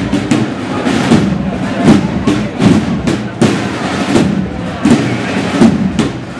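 A marching procession band's drums beating a march rhythm, with sharp hits several times a second over the steady sound of the band and crowd.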